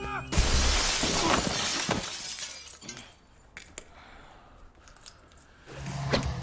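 A loud smashing crash about a third of a second in, dying away over a couple of seconds with a few small clinks and ticks.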